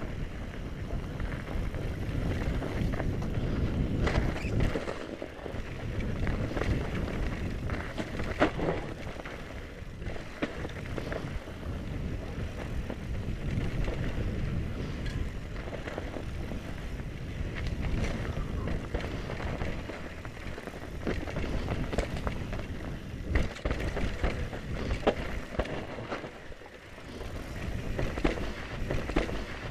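Mountain bike riding down a snowy forest trail: a steady rushing of tyres over snow and air past the microphone, with frequent knocks and rattles as the bike goes over bumps.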